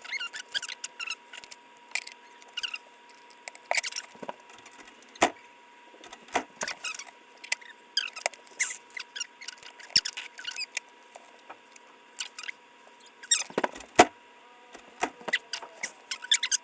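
Plastic LEGO pieces clicking and rattling as they are handled and snapped together, a run of irregular small clicks and scrapes with two louder knocks near the end.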